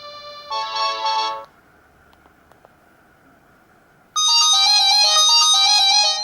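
LG GX200 ringtones played through a Samsung GT-E2121B phone's loudspeaker: a short electronic chime of several notes together ends about a second and a half in, then after a pause with a couple of faint clicks, another electronic melody of stepping notes starts about four seconds in and stops near the end.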